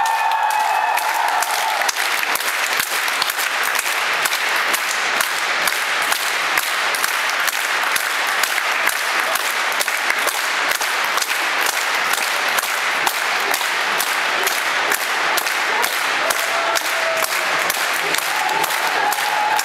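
Theatre audience applauding steadily during a curtain call, a dense mass of many hands clapping. A few held, tuneful tones sound through the clapping in the first two seconds and again near the end.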